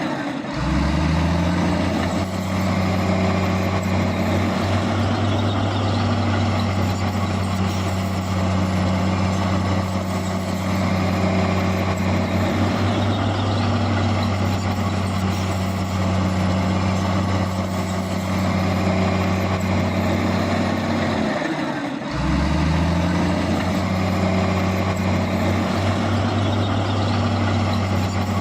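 Heavy diesel engine of earthmoving machinery running steadily under load. Twice, near the start and about 22 seconds in, its note dips briefly and then climbs back up as the revs pick up again.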